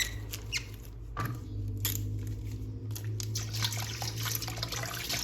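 Tap water running and splashing over a plastic action figure as it is washed clean, building up after a few sharp clicks of the plastic being handled in the first two seconds, over a steady low hum.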